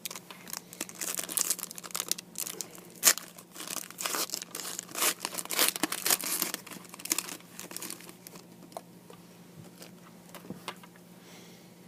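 Trading cards and their packaging handled by hand: quick rustling, crinkling and papery clicks, busiest for the first eight seconds or so, then dying down.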